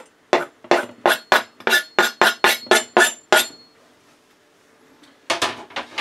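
Kitchen knife blade tapped rapidly against the rim of a slow cooker's ceramic pot, about four sharp clinks a second for three seconds, knocking the last bits of chopped mushroom off the blade; a couple more clinks near the end.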